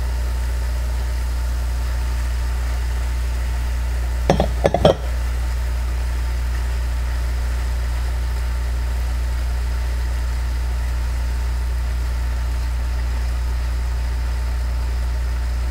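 A steady low hum throughout. About four to five seconds in there is a brief clatter of several knocks, as shrimp and a utensil go into a stir-fry pan on the stove.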